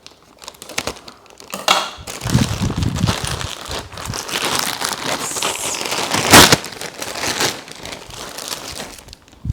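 Parcel packaging being crinkled and rustled by hand as it is opened, with one short, louder crackle about six seconds in.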